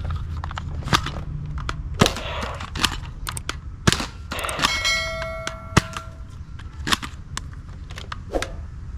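Sharp clicks and knocks of plastic toy guns being handled and triggered, at irregular intervals over a steady low hum. A brief ringing tone sounds from about four and a half to six seconds in.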